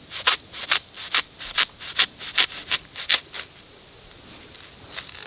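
Rhythmic crunching scrapes in dry bamboo leaf litter, about two or three strokes a second, stopping about three and a half seconds in.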